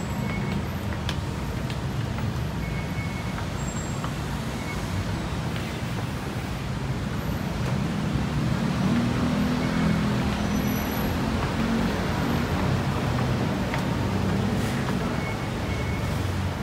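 Steady road traffic noise, with a low engine drone that grows louder about eight seconds in and eases near the end.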